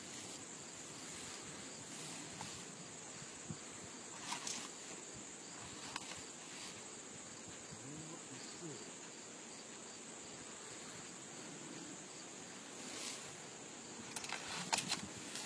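Insects chirring steadily in the grass, a continuous high buzz, with a few sharp clicks here and there and a small cluster of clicks near the end.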